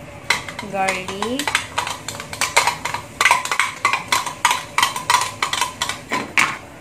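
Repeated sharp clinks, about three a second, as minced garlic is knocked and scraped out of a small glass bowl into a frying pan of melted butter.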